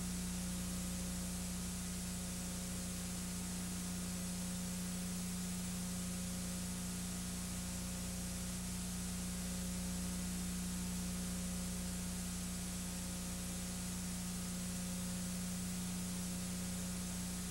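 Steady hiss with a constant low electrical hum and nothing else: the empty soundtrack of a silent home-movie film transfer.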